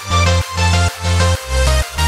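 Electronic dance music with a heavy, pumping bass beat, a little over two beats a second.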